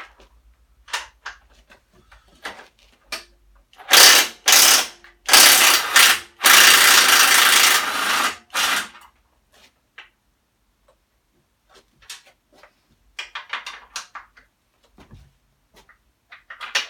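Power tool run in short bursts to undo bolts on a motorcycle: two brief spurts, then two longer runs of a few seconds, with light clicks of sockets and tools being handled before and after.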